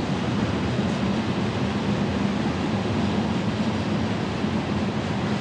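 Freight train of loaded ethanol tank cars rolling past on the rails, a steady, even rolling sound with no horn or sharp clanks.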